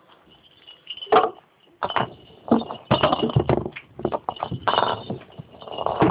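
Guinea pigs moving about and brushing against the phone at close range: irregular rustling and knocks.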